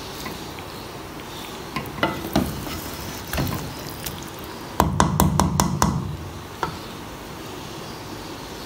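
A wooden spoon stirring chicken and potato curry in a metal pan, giving scattered knocks and scrapes against the pan and a busier run of them about five seconds in.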